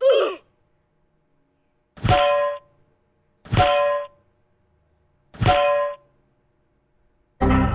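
Duck quacks: a short call falling in pitch at the start, then three separate honking quacks about one and a half to two seconds apart, each about half a second long. A louder, deeper sound begins near the end.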